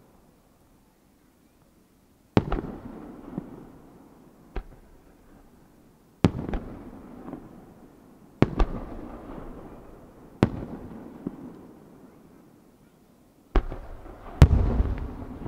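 Aerial firework shells bursting: about seven sharp bangs a second or two apart, each trailing off in an echoing rumble, with the loudest pair near the end. The first couple of seconds are near silent.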